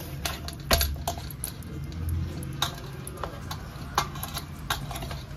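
Hands kneading wheat-flour dough in a stainless steel bowl: irregular light knocks and clicks as the dough is pressed and the bowl shifts, over a low steady hum.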